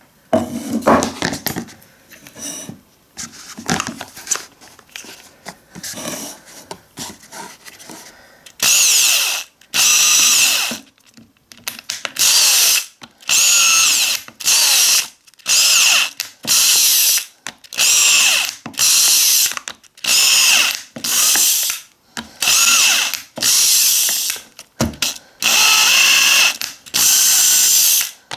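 Black+Decker cordless drill boring small holes through a thin clear plastic container: about fifteen short bursts of drilling, each about a second long, with a high-pitched whine of the bit cutting plastic. Before them, in the first eight or so seconds, there are irregular knocks and clatter.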